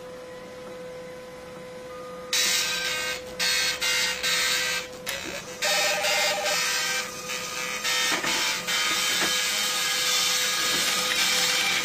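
Printing machine running: a steady hum, then a loud, even mechanical noise that starts about two seconds in and drops out briefly now and then.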